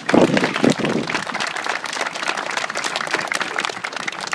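A crowd applauding, many hands clapping together, loudest in the first second.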